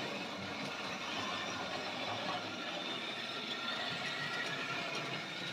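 Model railway locomotive running on the layout's track: a steady whirr from its small electric motor and wheels.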